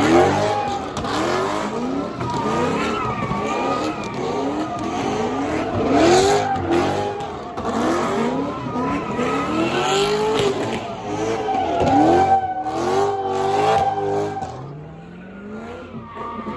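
A car engine revving hard over and over, its pitch rising and falling about once a second, with the tires squealing as the car spins donuts in a smoky burnout. It eases off near the end.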